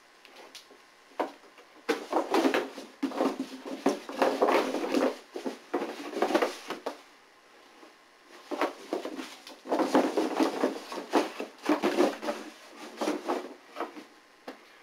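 Tangled rope hanger being handled and gathered into a cardboard box: irregular rustling, scraping and light knocks of cord against cardboard, in two long spells with a pause of about a second and a half between them.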